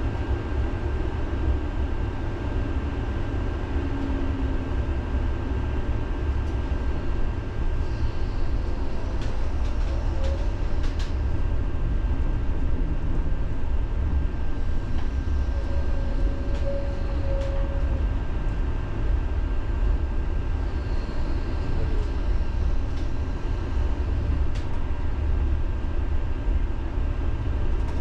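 Tram running along its rails, heard from inside the car: a steady low rumble with a thin, even whine over it and a few sharp clicks about ten seconds in.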